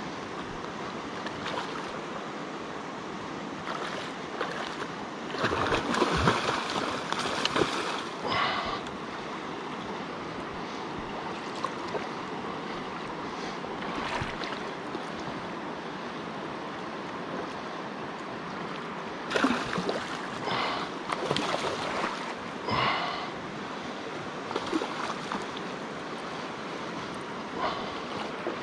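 Shallow river flowing steadily over rocks, with bursts of splashing about six seconds in and again around twenty seconds in from a hooked salmon thrashing at the surface.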